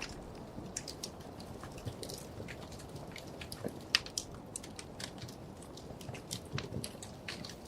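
Wood fire crackling in a fireplace: irregular sharp pops and snaps over a low steady hiss, with one louder pop about four seconds in.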